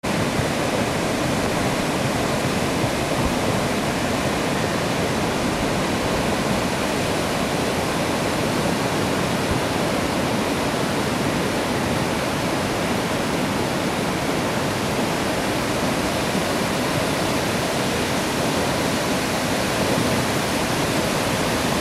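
Steady roar of ocean surf, waves breaking over a reef with whitewater washing toward the shore.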